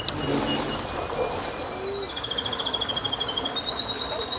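A small songbird singing: thin, high whistled notes, then from about halfway a fast, wavering trill.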